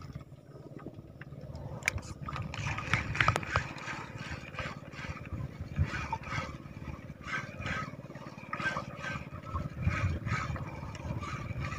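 Irregular small knocks, scrapes and splashes from a spinning rod and reel being worked over the side of a small outrigger boat.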